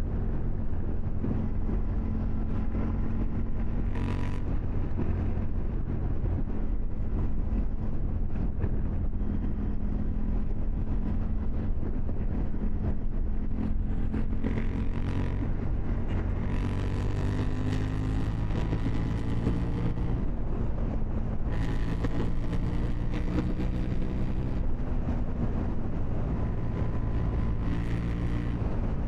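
KTM 790 Duke's parallel-twin engine running under a rider, steady at first and then rising in pitch again and again as it accelerates through the gears about halfway through. Gusts of wind hiss over the microphone at speed.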